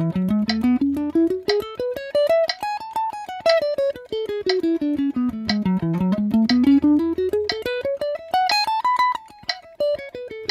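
Gibson Les Paul electric guitar playing a fast single-note scale run in triplets, picked note by note, climbing over two octaves and back down, then climbing and falling again. A metronome clicks about once a second under it.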